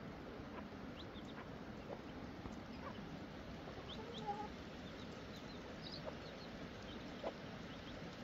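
Birds chirping here and there over a steady hiss, with one short, lower call about four seconds in.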